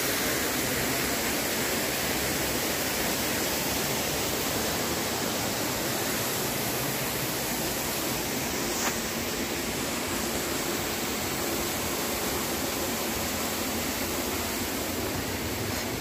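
Steady rushing noise like fast-flowing water, even in level throughout, with one faint click about nine seconds in.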